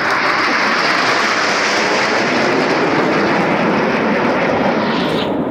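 A formation of Red Arrows BAE Hawk T1 jets passing overhead, the single Adour turbofan engines of the nine aircraft making a loud, steady rushing jet roar. The hissing top of the sound falls away about five seconds in as the formation moves past.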